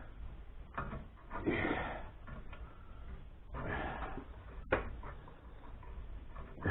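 Metal parts being handled and worked loose: a few rough scraping passes with sharp clicks and knocks between them, about a second in and again near 4.5 s.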